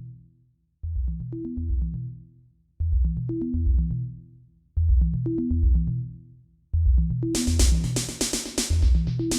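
Electronic background music: a repeating bass-and-synth phrase about every two seconds, with drums and cymbals coming in about seven seconds in.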